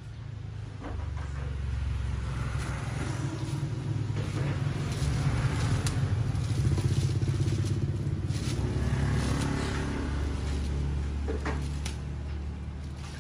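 A motor vehicle engine passing by, growing louder over the first few seconds and fading away near the end. A few light crinkles and clicks of a plastic bag can be heard as a puppy paws and noses at it.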